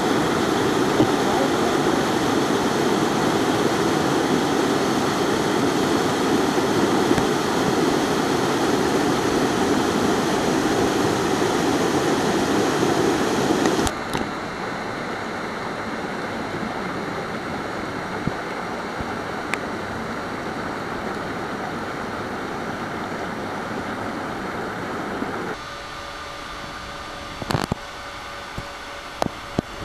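Waterfall in a gorge rushing close by, a loud even roar. About fourteen seconds in it cuts to a quieter steady hiss, and near the end it drops lower again, with a few sharp clicks.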